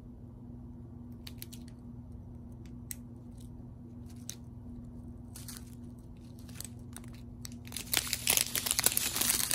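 Plastic bags of round resin diamond-painting drills crinkling as they are handled: a few light crinkles, then loud, dense crinkling and rustling from near the end as the bags are lifted. A steady low hum runs underneath.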